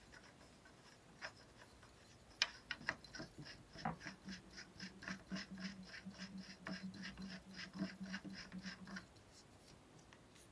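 A-TEC rifle suppressor being screwed by hand onto the threaded muzzle of a .22 rifle. Faint, scratchy metal ticking of the threads comes a few times a second, starting a couple of seconds in, with a faint low hum under it for several seconds.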